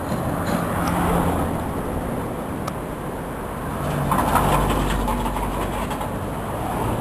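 Road traffic noise: motor vehicles going by on the road, with two swells, about a second in and again around four to five seconds in.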